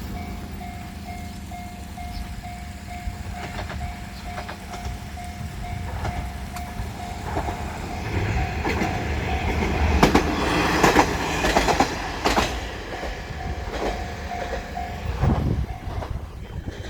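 Japanese level-crossing alarm sounding its steady, evenly repeated electronic ding while a diesel train passes over the crossing. The train is loudest about ten to twelve seconds in, with its wheels clacking over the rail joints. The alarm stops shortly before the end.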